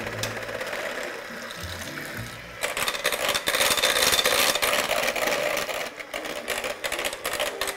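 Electric hand mixer running, its beaters whisking the last egg into creamed butter, margarine and sugar in a glass bowl. It gets louder about two and a half seconds in.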